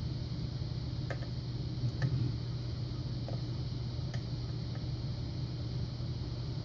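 Lock pick working the pins inside a Yale Punisher lock under tension, giving a few faint, irregular metallic clicks about a second apart over a steady low hum.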